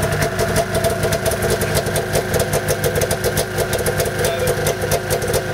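Arctic Cat snowmobile's two-stroke engine idling steadily.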